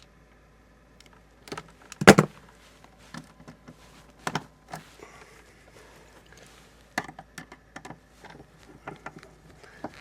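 Hand tools working on a wire in an electrical panel: scattered sharp clicks and knocks, with one louder clatter about two seconds in.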